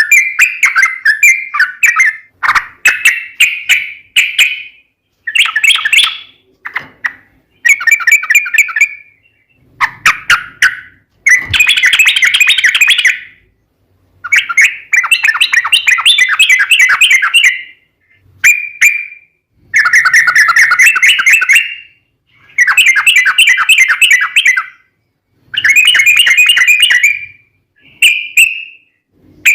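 Yellow-vented bulbul (trucukan) singing loud, rapid chattering phrases again and again, each lasting a second or two with short pauses between. This is the long rolling 'ropel panjang' song used as a lure to set other trucukan singing in reply.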